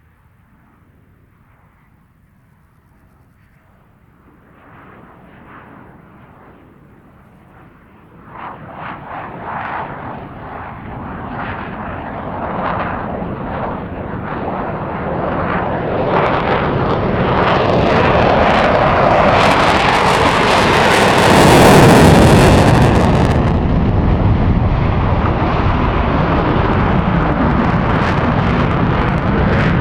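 Military jet fighter flying past in afterburner: faint at first, building from about four seconds in into a crackling rumble that grows steadily louder. It is loudest, with a hiss on top, a little after twenty seconds in as it passes, then goes on as a loud rumble.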